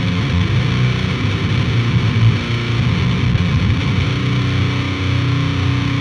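Schecter electric guitar played through the Otto Audio Blown Out Wall distortion plugin, giving a fuzzed-out, gross, distorted tone with its distortion circuit turned up. It plays low riffing, with one note held near the end.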